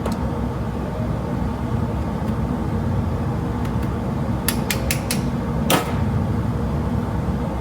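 Steady low drone of a shop fume extractor (smoke hog). About halfway through there are four quick light metallic clicks, then one louder clank, as the steel plate, nut and bolt are handled in the welding fixture.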